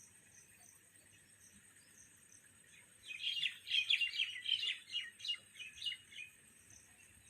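A bird gives a rapid chattering call of many short notes lasting about three seconds, starting a few seconds in, over a steady faint high insect drone.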